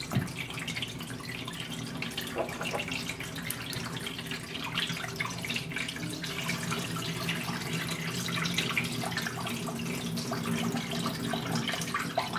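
Thin stream of clear filtered water trickling steadily from a deep bed paper filter's outlet into a glass beaker partly full of water, with a light knock just after the start.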